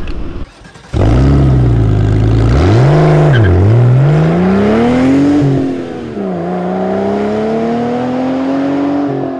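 Car engine revving: steady at first, a quick blip up and down about two seconds in, then a long climb in pitch that drops back around six seconds in and climbs again toward the end.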